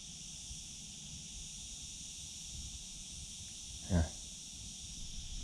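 Steady, high-pitched buzzing chorus of insects, over a low rumble of wind on the microphone. A brief grunt-like voice sound comes about four seconds in.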